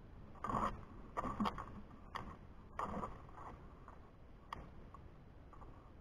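Gemsbok oryx scuffling close to the camera: a run of sudden scraping knocks over the first three seconds, loudest about half a second and one and a half seconds in, and one more knock about four and a half seconds in.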